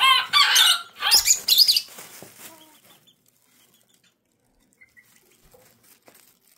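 Chickens calling: a quick run of high, squawking calls with bending pitch over the first two seconds, dying away to near quiet after about three seconds.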